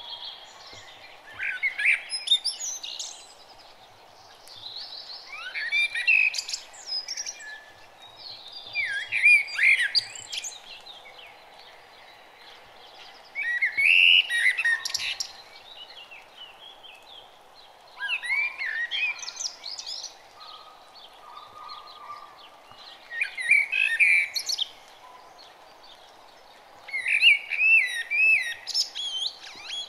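Bird song: about seven separate phrases of quick, gliding chirps and whistles, each lasting one to two seconds and coming every four to five seconds, over a faint steady background hiss.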